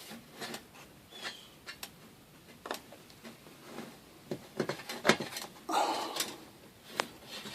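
Scattered light clicks and knocks of hardware being handled, with the sharpest about five seconds in and near the end, and a short scrape just before six seconds in.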